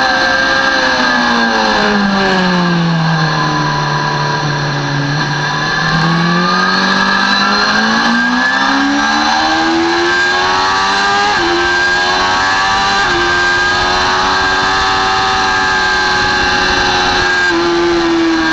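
Sportbike engine at racing speed: the revs drop to a low pitch about four seconds in as the bike slows for a corner. It then climbs steadily under hard acceleration, with two brief steps at the upshifts.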